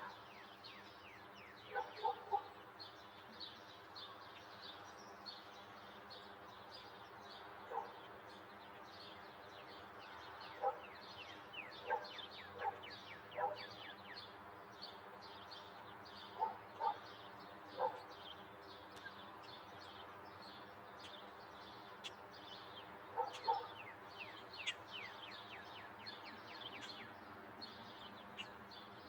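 Daytime outdoor ambience of many small birds chirping in quick falling chirps over a steady low hum. A louder short animal call, often in pairs, breaks in every few seconds.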